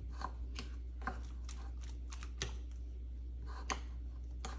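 Irregular light clicks and taps of fruit toppings and utensils being handled at the jars of overnight oats, over a steady low hum.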